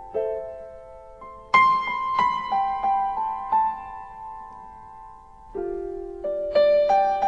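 Background music: a slow piano melody of single held notes, played one after another.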